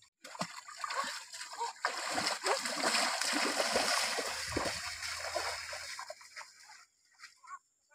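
Two people's feet splashing as they run through shallow stream water. The splashing is loudest in the middle and dies away near the end as they move off.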